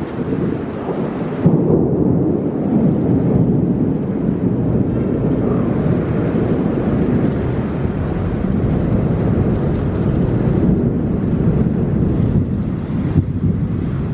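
Thunder rumbling over heavy rain during a thunderstorm, growing louder about a second and a half in and rolling on steadily.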